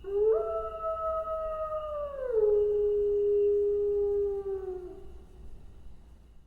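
A wolf howling: one long howl that swoops up at the start and holds a steady note, drops to a lower note about two seconds in, holds it, then fades away near the end.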